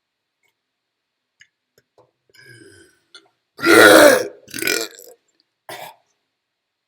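A person burping loudly, one burp lasting under a second about three and a half seconds in, followed by two shorter, quieter sounds.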